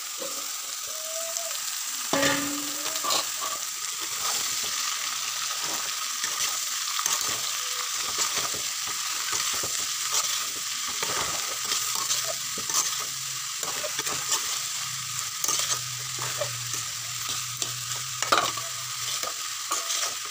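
Chopped bottle gourd sizzling in hot mustard oil in a kadai while a metal spatula stirs and scrapes through it, giving a steady frying hiss broken by frequent scraping clicks, the loudest about two seconds in and near the end.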